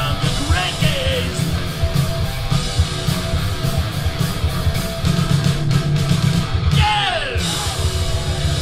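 Live rock band playing loud, with distorted electric guitars, bass guitar and drums. Near the end a note slides steeply down in pitch.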